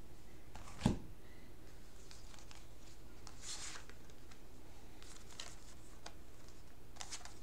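Tarot cards being dealt onto a cloth-covered table: a soft knock about a second in, then a few faint swishes as the cards slide down.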